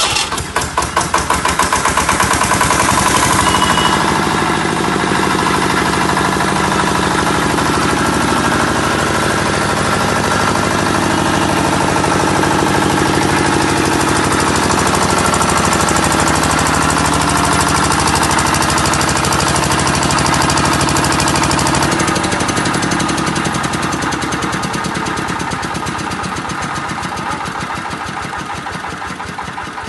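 Air-cooled diesel generator set catching after an electric self-start, its pulses quickening as it runs up to speed over the first two seconds. It then runs steadily at speed and grows slightly quieter over the last several seconds.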